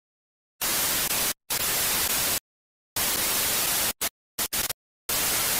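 Bursts of TV-style white-noise static that cut on and off abruptly with dead silence between: three long bursts of about a second each, then a few short ones and a last half-second burst near the end.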